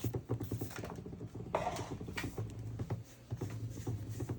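Quick plastic clicks, taps and rattles of the floor washer's dirty water tank being handled after its release, with a short rustle about one and a half seconds in.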